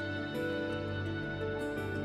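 Soft, slow background music with sustained notes and gently changing chords.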